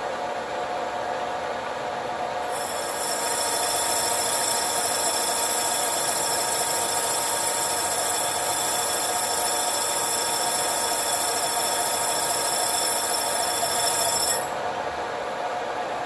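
Engine lathe running with a large copper tube spinning in the chuck. About two and a half seconds in, the cutting tool starts a cut into the tube, adding a loud, steady, high ringing hiss that stops abruptly near the end when the cut ends.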